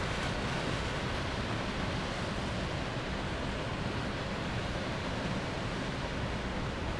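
Steady, even rushing hiss of steam venting in a large white cloud at an industrial plant.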